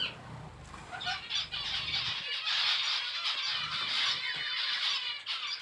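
Lovebirds chirping and chattering, a dense run of fast, high calls that starts about a second in.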